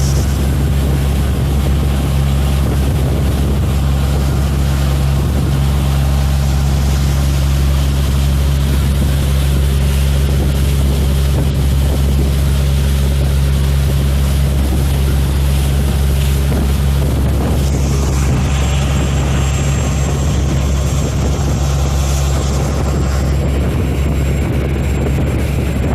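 Small motor launch under way, its six-cylinder four-stroke Volvo inboard engine running steadily at speed, with wind and water rushing past. The gearbox has been repaired, and the boat is back to its original speed.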